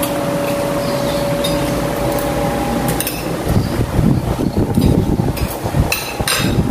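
Spoons and forks clinking and scraping on plates while eating, with several sharp clinks in the second half, over a steady background hum.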